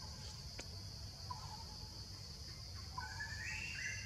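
Steady high drone of forest insects, over a low background rumble. A few short, high calls are heard about a second in, and a run of stepped, rising calls comes about three seconds in.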